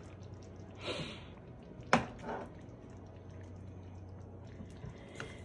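Spatula stirring thick gravy in a nonstick frying pan: a short scrape about a second in, then a sharp knock of the spatula against the pan about two seconds in and a softer one just after, over a faint low hum.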